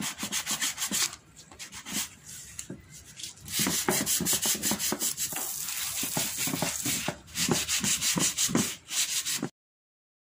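Wet sandpaper rubbing in quick back-and-forth strokes on a plastic monoblock chair, wet-sanding off the weathered surface layer that muriatic acid has softened. For a few seconds in the middle a garden-hose spray nozzle hisses over the chair while the sanding goes on. The sound cuts off abruptly near the end.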